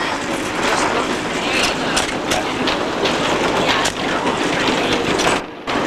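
An old wooden rail car clattering along its track, heard from on board: steady rumbling rattle with many sharp clacks, dipping briefly near the end.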